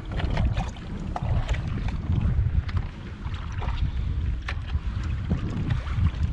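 Wind buffeting the microphone in a steady low rumble, with small splashes and ticks of water lapping against a kayak hull on choppy open sea.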